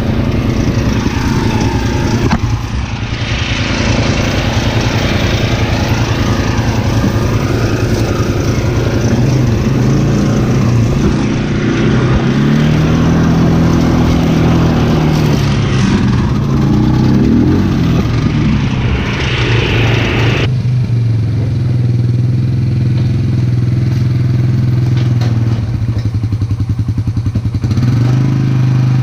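Dirty Hand Tools pull-behind brush mower and its towing vehicle running steadily while mowing, the engine pitch dipping and rising once in the middle. A rushing noise over the engines drops away sharply about twenty seconds in, leaving the engine running alone.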